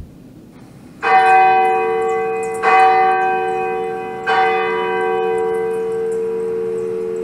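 A bell struck three times, about a second and a half apart, each stroke ringing on with a long, slowly fading ring into the next.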